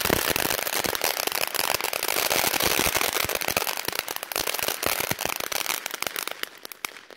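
A ground firework (a Laser Streamer) burning with dense crackling and popping. It thins out and dies away near the end as it burns out.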